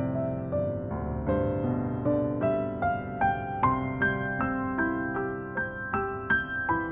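Background piano music: gentle, slow melody of single struck notes over sustained chords.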